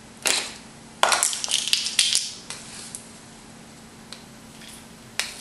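Dried oregano being scooped from a spice jar with a plastic measuring spoon and tipped into a metal bowl: a short rustle, then a cluster of crackling scrapes and clicks about a second in, then a few light ticks.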